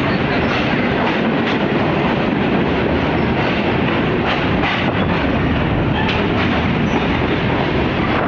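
Freight train of tank cars rolling past close by: a loud, steady rumble of steel wheels on rails, with scattered clacks as the wheels cross the rail joints.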